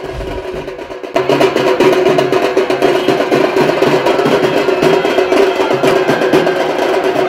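Festival drums (melam) beating a fast, dense rhythm that comes in at full strength about a second in, over a steady held pipe tone.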